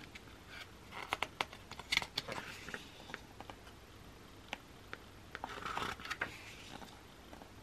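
Pages of a photobook being turned by hand: soft paper rustles and small taps, with a longer page swish about six seconds in.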